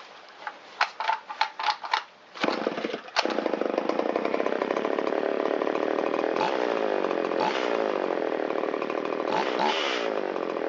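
A series of clicks, then the Shindaiwa 360's two-stroke chainsaw engine starts about three seconds in and idles steadily, with a few brief dips in speed. After its idle mixture screw has been turned in a quarter turn, the idle still sounds a little on the rich side.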